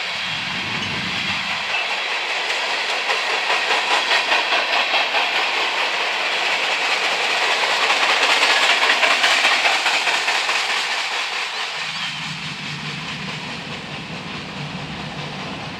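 Freight cars rolling past on steel wheels, a steady rail noise with a rhythmic clickety-clack of wheels over the rail joints. It builds to its loudest a little past the middle, then eases off.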